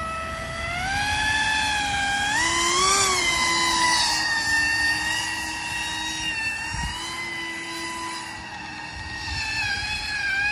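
Pro Boat Aerotrooper RC airboat's brushless motor and air propeller on 4S LiPo, a pitched whine that climbs with throttle in the first few seconds, holds steady, dips briefly and climbs again near the end.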